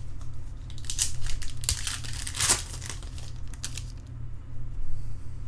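Plastic or foil wrapper of a baseball card pack crinkling and tearing as it is opened by hand, in a run of rustling bursts that are loudest between about one and four seconds in, over a steady low hum.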